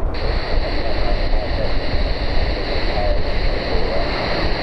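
Strong wind buffeting the microphone: a steady rushing roar with a deep rumble underneath.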